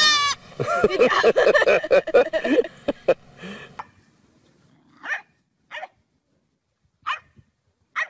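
A dog barking and whining: a busy run of pitched, wavering calls for the first few seconds, then four or five short, separate barks.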